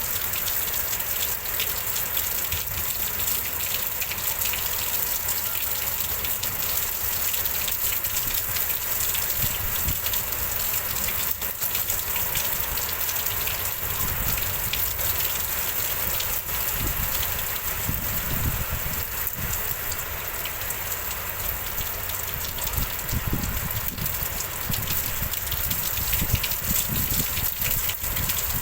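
Heavy rain pouring steadily in a windstorm, with irregular low rumbles of wind gusts, more frequent in the second half.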